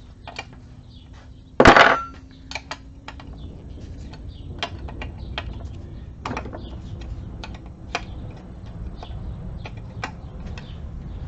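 Metal tools and transfer-case parts clinking and tapping during disassembly, with scattered light clicks and one loud metallic clank just under two seconds in.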